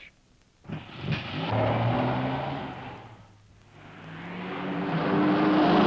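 Cartoon motor-vehicle engine sound effect for something speeding off: it starts about a second in and runs loud, fades to a lull about halfway through, then swells again, climbing slightly in pitch toward the end.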